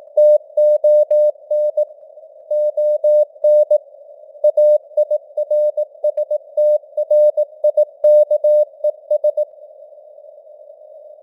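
Morse code (CW) at 18 words per minute: a steady mid-pitched beep keyed in dots and dashes over a band of simulated radio static hiss, with short breaks between words. Near the end the keying stops and only the hiss remains.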